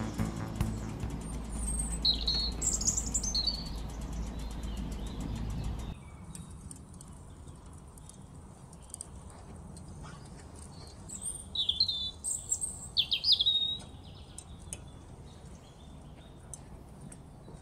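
Small birds chirping in short calls, a cluster about two seconds in and another around eleven to fourteen seconds in, over a low steady rumble that drops away about six seconds in. Scattered faint crackles come from the wood fire burning in the smoker's firebox.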